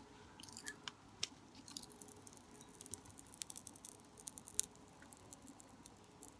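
Cola-flavoured popping candy crackling: many faint, tiny snaps at irregular moments.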